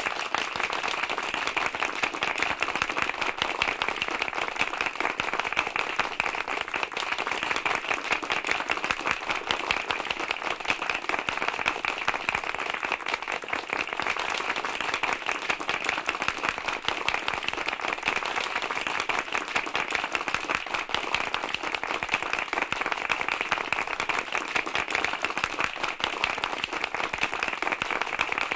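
Large crowd applauding loudly and steadily, many hands clapping at once with no break.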